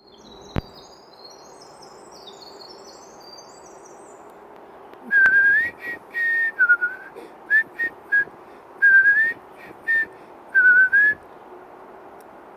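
A songbird sings a quick run of high, stepwise rising notes over the first few seconds. About five seconds in, a person whistles back loudly in a string of short and longer notes, some sliding up or down, which stop about eleven seconds in. A single sharp click comes shortly after the start.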